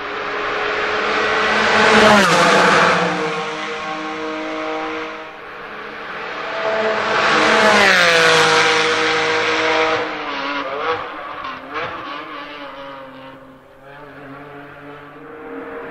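2019 Porsche 718 Cayman GT4's naturally aspirated flat-six engine at high revs as the car passes twice at speed, its note dropping in pitch as it goes by each time. After the second pass the sound fades, with a couple of short sharp cracks, and the engine grows louder again near the end.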